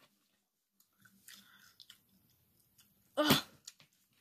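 A boy lets out one sudden, loud blast of breath about three seconds in, a burning reaction to an extremely spicy chicken wing. It is quiet before it.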